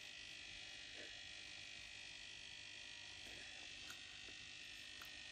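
Near silence: faint steady hiss of room tone with a thin high whine and a few faint ticks.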